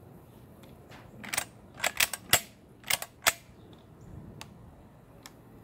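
Sharp metallic clicks and clacks of a 12-gauge semi-automatic shotgun's action and shells being worked by hand: about six loud clicks in quick succession between one and three and a half seconds in, then a couple of faint ticks. The shotgun is being sorted out after a shell failed to seat in the magazine tube and slipped back out.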